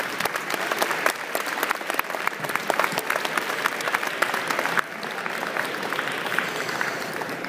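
Audience applauding, a dense run of claps that drops away suddenly about five seconds in.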